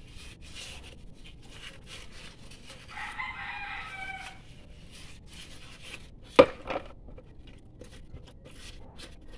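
Fine sandpaper rubbing inside a drum-brake wheel cylinder by hand, a quick scratchy stroke repeated a few times a second. A rooster crows about three seconds in. A sharp knock, the loudest sound, comes about six and a half seconds in, with a lighter one just after.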